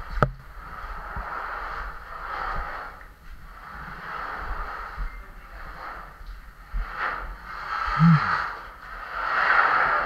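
Heavy breathing close to the microphone, a breath every second or two, with a short low vocal grunt about eight seconds in.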